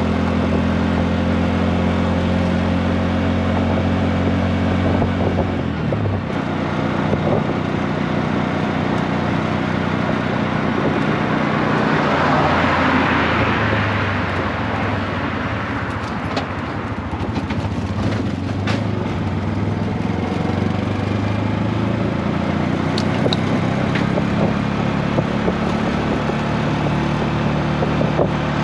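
Auto rickshaw's small engine running under way, heard from inside the open cab with road and wind noise; its note changes about six seconds in. A broad rush swells and fades around the middle as a car passes alongside, and a few sharp rattles follow.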